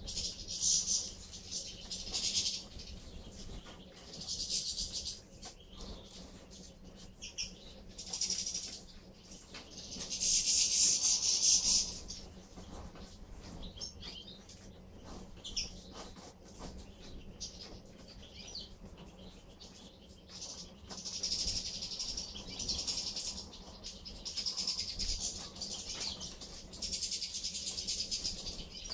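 A flock of European goldfinches twittering in repeated high bouts, the loudest lasting about two seconds near the middle, with wingbeats as birds come and go.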